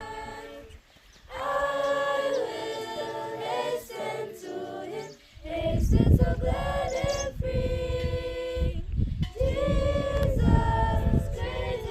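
A group of voices singing in held, sustained notes, choir-like. From about five seconds in, a heavy low rumble runs beneath the singing.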